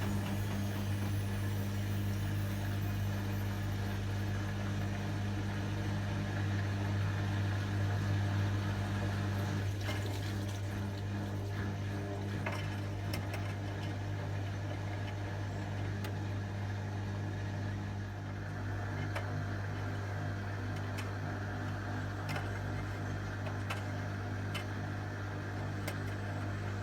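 Hotpoint WMA30 washing machine running through an unbalanced spin, its motor giving a steady hum. The motor note changes about a third of the way through, and scattered clicks and knocks follow.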